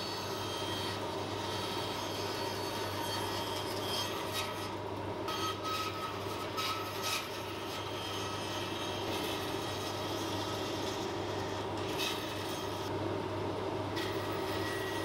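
Bandsaw running steadily with a constant hum, its blade cutting a hurley blank out of an ash plank, with short rasps now and then as the wood is fed through.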